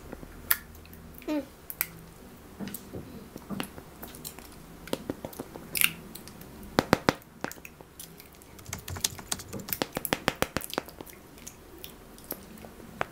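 Chocolates being eaten: scattered sharp clicks and crackles of chewing and handling, with a quick run of clicks about seven seconds in and a longer run between nine and eleven seconds.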